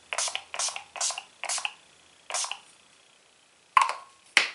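Pump-action setting spray misting onto the face: five quick hissing spritzes, roughly two a second, then two sharp clicks near the end, the loudest sounds.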